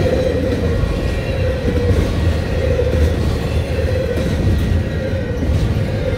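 Double-stack intermodal container train's well cars rolling past: a loud, steady noise of steel wheels running on the rails, with a deep low rumble underneath and a faint thin high tone held throughout.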